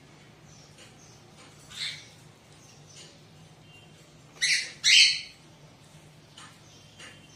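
Cockatiel calling: soft short chirps, one louder call about two seconds in, and two loud harsh squawks in quick succession about four and a half seconds in.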